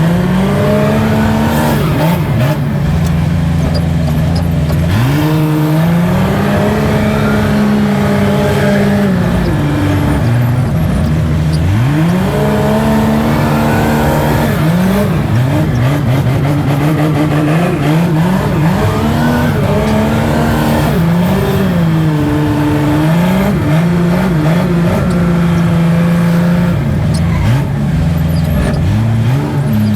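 Wheel loader's engine revving up and settling back again and again as it works, holding the higher revs for a few seconds each time.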